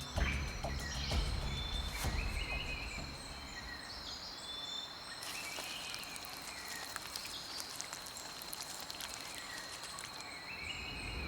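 Rainforest ambience: a steady high insect buzz with scattered short chirping calls over a soft hiss.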